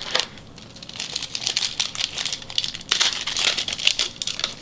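Wrapper of a 1991 Upper Deck football card pack crinkling as it is opened by hand: a dense run of crackling that gets louder about three seconds in.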